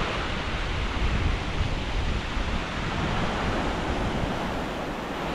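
Sea surf washing on a beach, with wind buffeting the microphone in uneven gusts.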